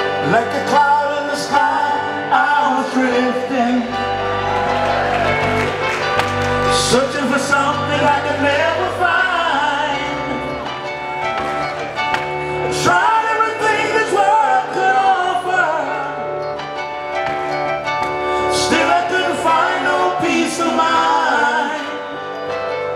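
Live gospel band playing: an electric keyboard and drums, with male vocalists singing wordless runs over the music.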